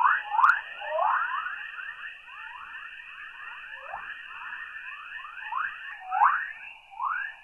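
Earth's 'chorus' radio waves from the Van Allen radiation belts, picked up by a NASA probe's antenna receiver and played back as sound. It is a dense stream of overlapping rising chirps, several a second, a few of them louder, over a steady high hiss.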